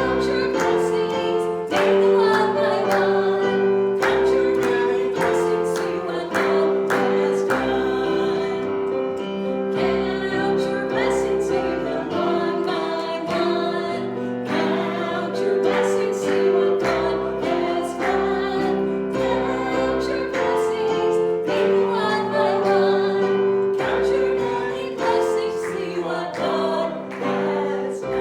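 A hymn sung by a group of voices with piano accompaniment, the notes held and moving steadily.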